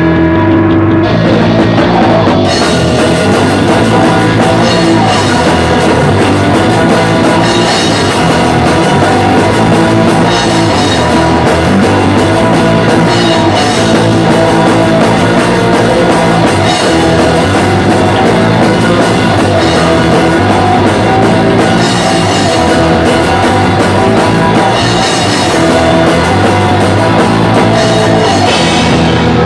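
Pop-punk band playing loud and steady: distorted electric guitar, bass and a full drum kit. The cymbals come in about two seconds in.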